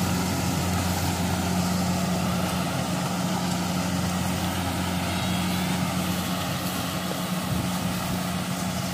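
Kubota DC-70 rice combine harvester running steadily under load while cutting rice: a constant diesel engine drone with the noise of the cutting and threshing machinery.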